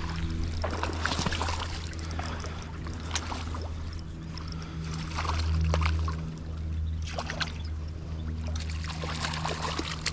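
River water running and splashing around a wading angler while a hooked trout is played. Scattered sharp ticks and splashes sit over a steady low hum, with a louder surge about halfway through.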